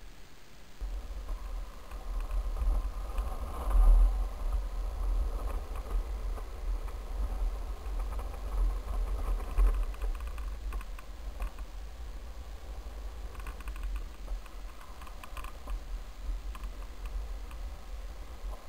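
Rumble from a camera riding along on a board rolling down an asphalt street: road and wheel vibration, with wind buffeting the microphone. It starts about a second in and swells loudest twice, with scattered small clicks and rattles.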